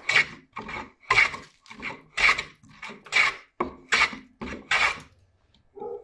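Wooden hand plane taking shavings off the edge of a board: about six rasping cutting strokes roughly a second apart, with a softer stroke between each, stopping about five seconds in.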